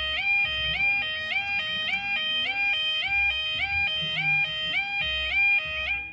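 UK level crossing yodel alarm sounding as the barriers lower for an approaching train: a two-tone warble that steps between a low and a high pitch about twice a second. It cuts off suddenly near the end, once the barriers are down.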